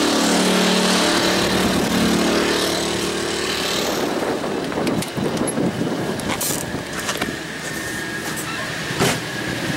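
A pair of Champion 2000-watt inverter generators running together in parallel at maximum RPM, a steady engine hum that fades over the first four seconds. After that come several sharp clicks and knocks.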